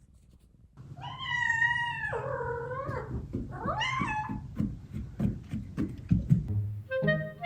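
Domestic cat meowing: one long, drawn-out meow lasting about two seconds, then a shorter rising meow, followed by a run of quick soft clicks and rustles. Background music starts near the end.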